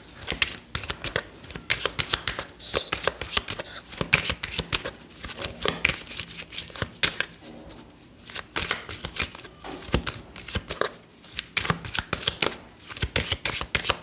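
A deck of tarot cards being shuffled by hand: a fast run of papery card flicks and slaps, with a short pause about eight seconds in.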